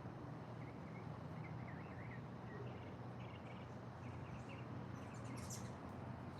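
Small songbirds chirping faintly in short notes, with a quicker burst of high chirps near the end, over a steady low background rumble.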